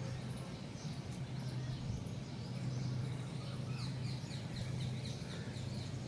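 Small birds chirping in a quick series of short, high, downward-sliding notes, thickest in the second half, over a steady low hum.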